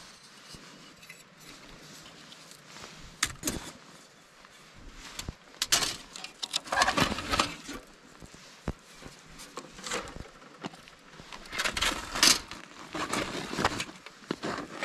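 Irregular clinks, scrapes and rustles of gear being handled, with light metallic clinking among them.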